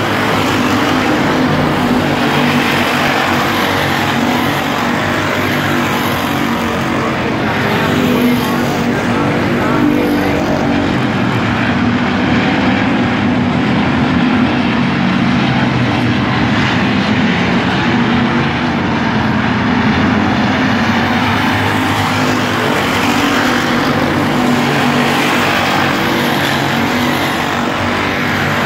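A field of dirt-track stock cars racing around the oval, their engines running loud and continuous as the pack laps.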